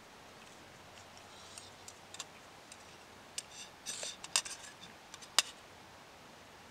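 A spoon scraping and clinking against a metal canteen cup while the last of a meal is scooped out. There are a few scattered light scrapes, a small cluster of clicks about four seconds in, and one sharp clink near the end.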